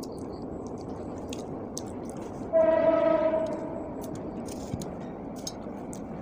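A single horn blast, a steady pitched tone lasting a little over a second, starts suddenly about two and a half seconds in and then fades. Under it and around it are soft clicks and smacks of someone chewing and eating by hand.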